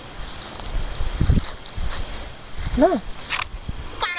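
Crickets chirping as a steady high tone, with a few low thumps about a second in and a short rising-then-falling call near three seconds. Just before the end, a Furby toy starts up with a sharp click and an electronic tone.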